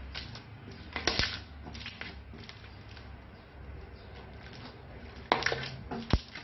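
Slime being handled, with short sticky squishes and crackles; the loudest come about a second in and again near the end, followed by a sharp click.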